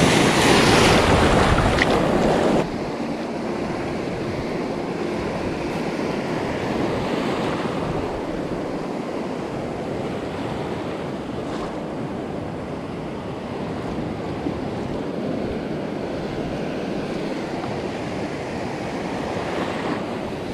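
Ocean surf washing and breaking around a wader's legs, with wind buffeting the microphone. It is loudest for the first two or three seconds, then drops suddenly to a steadier wash.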